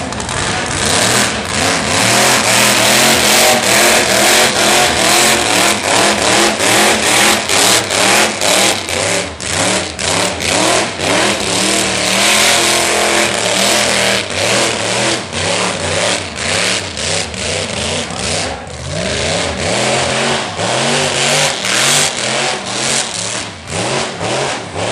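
Burnout car's engine held at high revs, the revs rising and falling in quick repeated surges, over the hiss of the rear tyres spinning on the pad.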